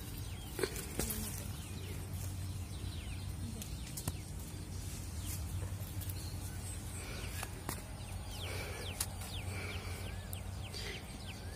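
Birds chirping: many short, quick downward-sliding chirps, busiest in the second half, over a low steady rumble and a few scattered clicks.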